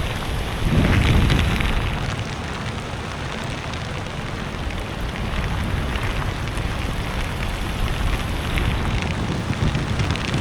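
Steady rushing noise of rain and wind buffeting the microphone, with a low rumble underneath.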